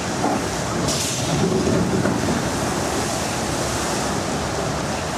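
Water rushing steadily down a log flume's drop and through its trough, with a louder surge about a second in as a boat comes down the chute and splashes through the channel.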